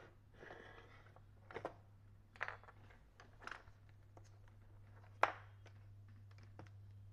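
Faint handling knocks of a plastic iron housing and tools being set down on a workbench: a few short, sharp knocks, the loudest about five seconds in, over a steady low hum.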